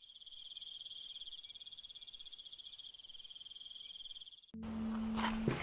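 Insect trilling: a steady, rapidly pulsing high trill that stops abruptly about four and a half seconds in, when music starts with a low bass note.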